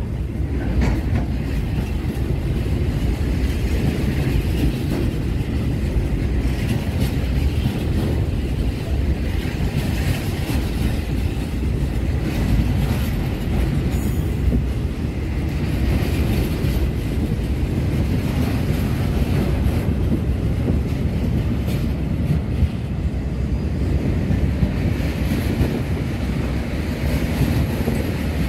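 Container freight train's wagons rolling past close by, a steady deep rumble of steel wheels on the rails with clatter over the track.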